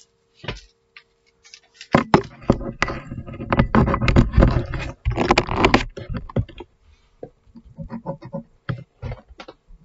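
Handling noise as a device is plugged in to charge: a dense run of knocks, scrapes and rustles for a few seconds, then scattered light clicks and taps.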